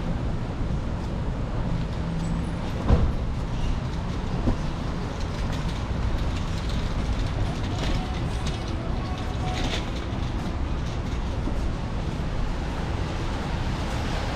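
City street traffic, a steady low rumble of passing vehicles, with a sharp knock about three seconds in and a smaller one about a second and a half later.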